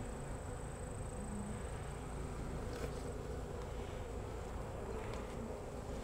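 Honey bees buzzing around an opened hive and a lifted brood frame: a steady colony hum.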